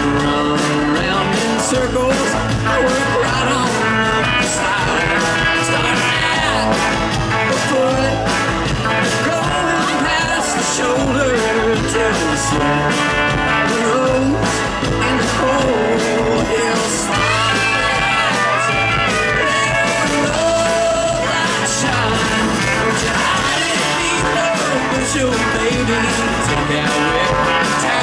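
A live band playing a country-rock song on stage, full band sound with a steady beat and a lead melody over it.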